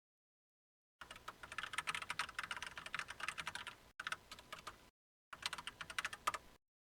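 Typing on a computer keyboard: a run of rapid keystrokes lasting about four seconds, a short pause, then a second, shorter run.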